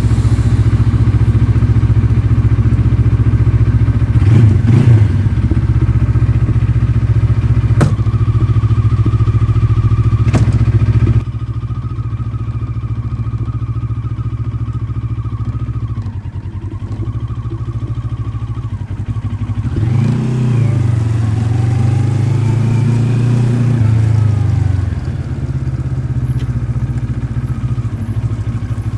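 Moto Morini X-Cape 650's liquid-cooled parallel-twin engine idling, with a short throttle blip and a couple of sharp clicks. About two-thirds of the way through, the revs rise, hold for a few seconds, then drop back.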